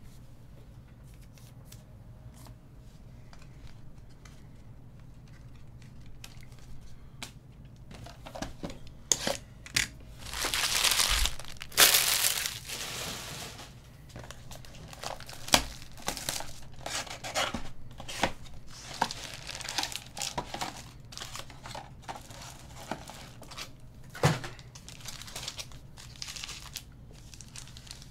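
Plastic wrapping torn from a sealed Panini Select basketball hobby box, loudest for about three seconds starting about ten seconds in. After that comes frequent crinkling of the box's foil card packs as they are handled.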